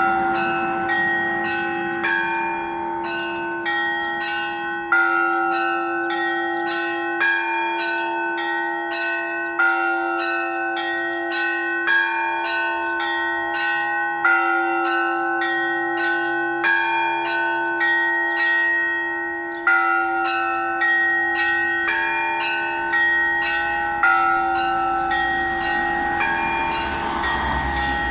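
Russian Orthodox church bells ringing in a rhythmic peal. Small bells are struck several times a second in a repeating pattern over a deeper bell that sounds about every two and a half seconds.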